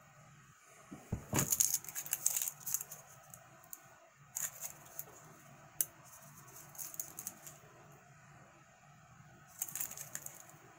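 Short bursts of crinkling and clicking from a small cardboard juice box, its straw in a plastic wrapper, being picked up and turned over in the hands, with the loudest bursts about a second in and again near the end.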